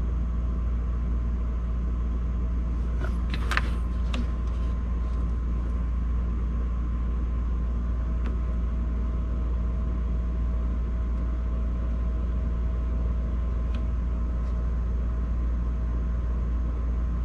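A steady low machine rumble with faint steady whines above it, unchanging throughout. Light clicks come about three seconds in.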